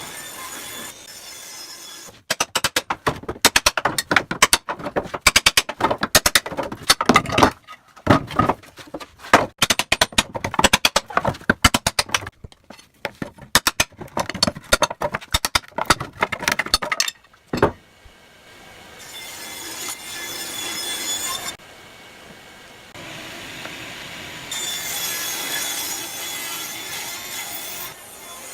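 Power tools sawing in a workshop: a fast, choppy, rattling cut for about fifteen seconds, then a steadier run with a high whine.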